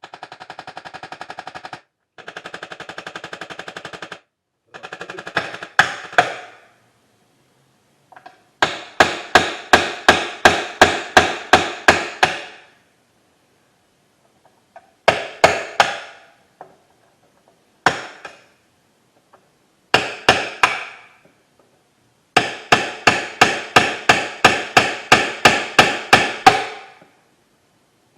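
Tool work on a metal radio chassis. A fast, even rattle runs in two stretches of about two seconds each. Then come runs of sharp, ringing blows at about three a second, the loudest sounds here, stopping and starting several times.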